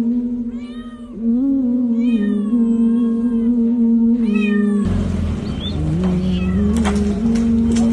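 Domestic cat meowing, calling out three times in the first half, each meow rising then falling, over background music with long held notes. About five seconds in a rough rushing noise comes in under the music.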